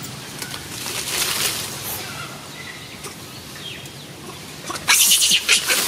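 Rustling and rapid crackling of dry leaves and twigs, starting suddenly and loudest from about five seconds in, with faint bird chirps earlier.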